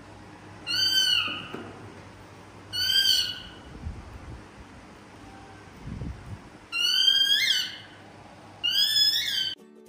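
Baby monkey giving four high-pitched cries, each under a second long, about two seconds apart.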